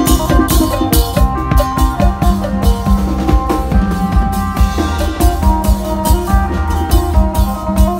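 Live Isan folk band music: a drum kit keeps a fast, steady beat under plucked electric phin and held, drone-like notes, with small hand cymbals.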